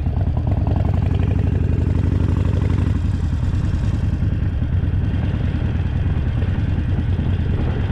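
Harley-Davidson Sportster Roadster's air-cooled V-twin engine running steadily.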